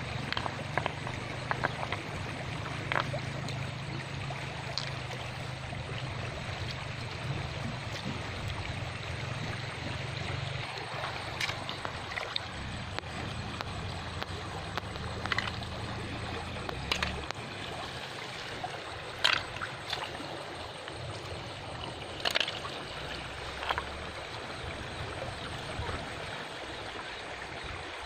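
Shallow river running over stones, a steady trickling wash, with scattered sharp clicks and knocks as river snails and stones are handled in the water. A low rumble is heard through roughly the first half.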